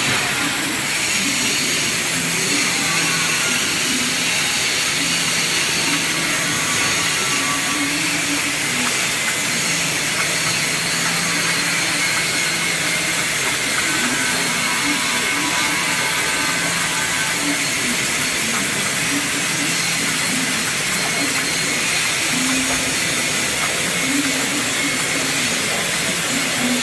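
CNC waterjet cutter's high-pressure jet hissing steadily as it cuts through a thin metal sheet, the spray blasting into the water of the catch tank beneath.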